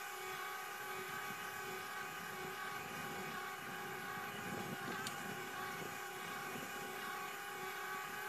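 Electric bicycle's small 5-pound motor and single-chain reduction drive whining steadily as it pulls hard up a steep grade in first gear, drawing about 1200 watts.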